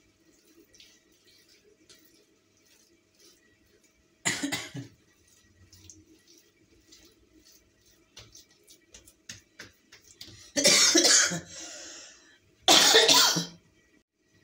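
A woman coughing: one short cough about four seconds in, then two louder, longer bouts near the end. Between them come faint ticks and rustles of dough being rolled by hand on a tiled counter.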